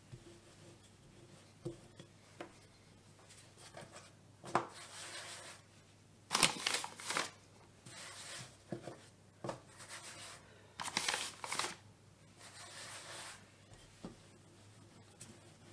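Wooden rolling pin rolling shortcrust dough on a floured worktop, in short strokes with scraping, rustling passes and a few light knocks, mixed with hands patting and smoothing the dough.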